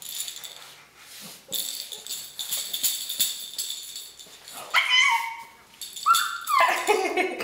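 A baby's soft toy ball jingling and rattling for a few seconds as it is waved and dropped. After it, the baby squeals twice in high, gliding cries.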